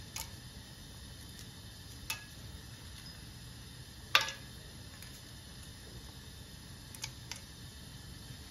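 Light clicks and taps as whole spices are dropped one by one into a steel pot of hot oil and ghee, over a faint steady hiss. There are about five taps in all, and a sharper one with a short ring about four seconds in.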